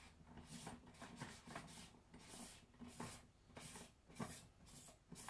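Metal cap of a 1950s Mirro cookie press being screwed onto its barrel by hand: faint repeated scraping of metal on metal, a short stroke about every half second.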